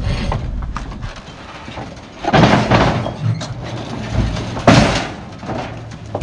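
Heavy plastic protein tubs being slid and set down on a wooden trailer deck: scraping and dull thuds, with one sharp knock, the loudest, near the end.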